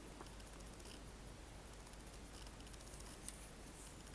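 Faint handling of plastic model-kit sprues: light high rustling and ticking with one small sharp click about three seconds in, over a low steady hum.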